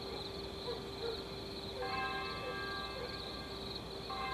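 A bell-like chime with several stacked tones rings for about a second, starting about two seconds in, and sounds again near the end, over a faint steady drone.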